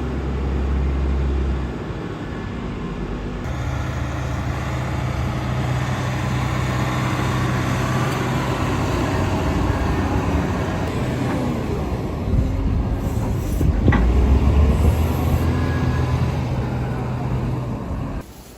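Steady machinery hum with engine-like droning, changing abruptly about two seconds and three and a half seconds in, as one machine recording gives way to another.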